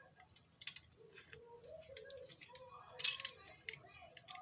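Small metal parts of a die-cast model car clinking and tapping as they are handled, with a few sharp clicks, the loudest about three seconds in.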